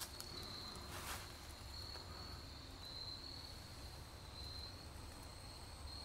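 Faint chorus of crickets trilling at a steady high pitch, in overlapping pulses. There is a brief rustle about a second in.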